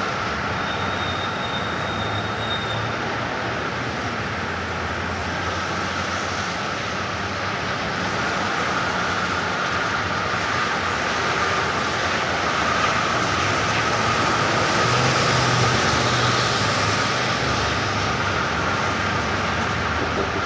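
1960s city traffic ambience: a steady wash of engine and tyre noise from passing vehicles, swelling a little louder about three quarters of the way through.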